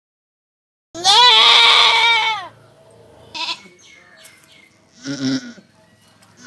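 Goat doe in labour bleating, with the birth sac already showing. A long, loud, wavering bleat starts about a second in, and a shorter, lower bleat follows about two seconds before the end.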